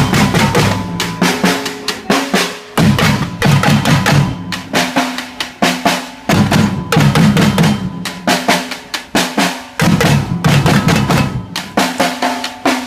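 Music driven by fast drumming, with rapid snare and bass-drum hits.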